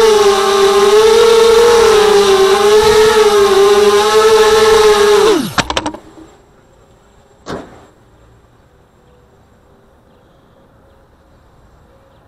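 A 230mm FPV mini quadcopter's brushless motors whining in flight, the pitch wavering up and down with the throttle. About five and a half seconds in, the pitch drops steeply and the motors stop. A single sharp click follows about two seconds later.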